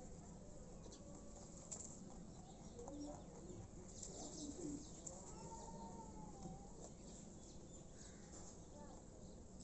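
Faint outdoor ambience: a few bird calls, with soft crunching and rustling as rabbits nibble cabbage leaves on the ground.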